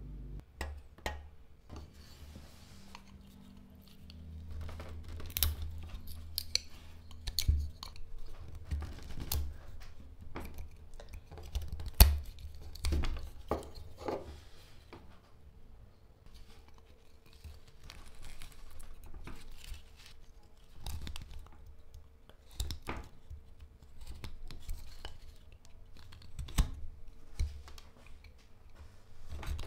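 Carving knife whittling a hard Robinia (black locust) stick: irregular short slicing and scraping cuts as chips shear off, with a sharp snap about twelve seconds in.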